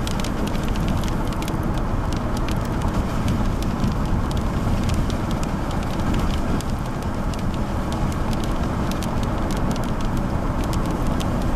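Steady road and engine noise inside a moving car on wet pavement. Scattered sharp ticks of raindrops hit the windshield and body throughout.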